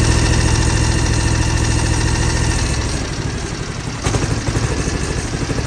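John Deere X720's Kawasaki V-twin engine running with its right cylinder missing, even though that cylinder has spark. A loud, fast, even pulse that sags slightly about three seconds in and picks up again about a second later.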